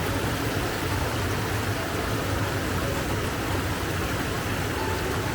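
Steady rush of falling water from a waterfall, an even noise with no breaks.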